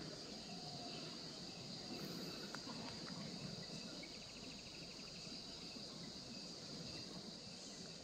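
Faint steady chirring of an insect chorus, a constant high-pitched drone, with a brief rapid trill about three seconds in.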